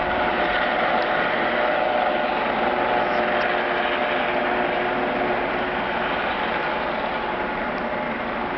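A steady, helicopter-like mechanical drone: a rushing noise with several held tones in it, with a tinny, sheet-metal ring unlike an ordinary helicopter. Its source is unidentified. It eases off slightly in the second half.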